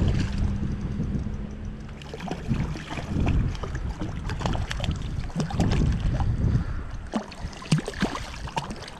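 Wind rumbling on the microphone over moving water, with scattered small splashes and knocks.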